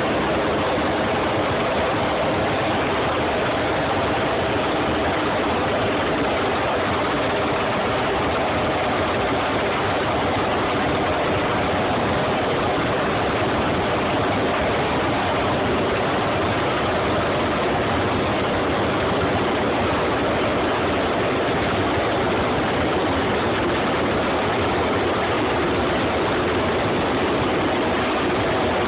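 Large Mil Mi-8-type transport helicopter hovering close overhead with a slung load: a steady, loud rush of turbine and rotor noise that holds an even level throughout.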